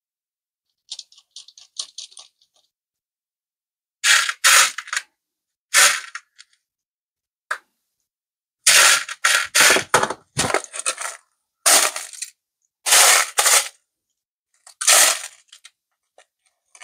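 Loose small metal screws rattling and clinking in repeated bursts as a hand sifts through a mixed heap of them: light ticks at first, then louder clattering.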